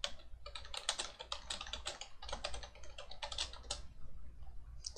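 Typing on a computer keyboard: a quick run of keystrokes that thins out near the end.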